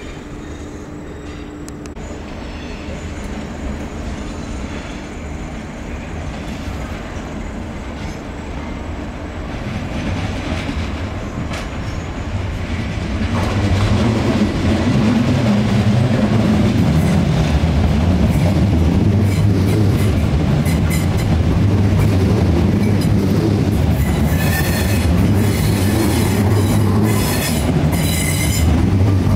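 Third-rail suburban electric multiple unit approaching and drawing into the platform. Its low running rumble grows louder until it is close about halfway through. Near the end come high-pitched wheel squeals and clicks.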